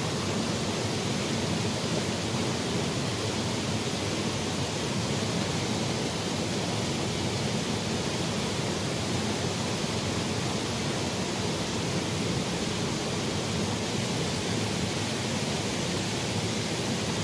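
Small shallow stream flowing over its bed: a steady, even sound of running water.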